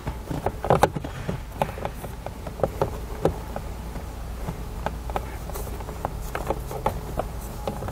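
Plastic fuse panel cover being worked into the lower dash trim by hand: irregular plastic clicks and taps, over a steady low hum.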